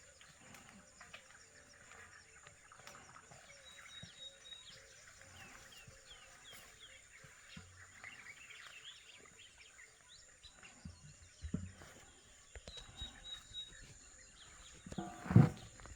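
Faint outdoor ambience of birds chirping and calling in short scattered notes, with a few soft knocks near the end.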